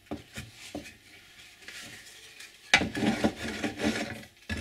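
Wooden battens being handled and dry-fitted: a few light clicks, then a little past halfway a scraping rub of wood sliding against wood for over a second, and a sharp knock near the end.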